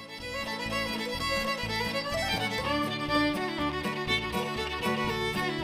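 Background music: a fiddle tune with guitar and a steady beat, in a bluegrass or country style.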